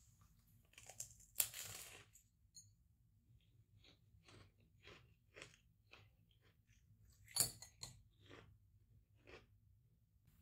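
Close-up eating sounds of a crisp meringue pavlova: a loud crunch as it is bitten about a second and a half in, then chewing at about two strokes a second, with a second loud crunching bite about seven seconds in.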